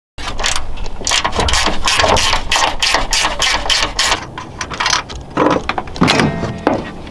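Socket ratchet clicking in quick strokes as the front strut's top-hat nuts are worked, followed by a few sharp metal knocks near the end.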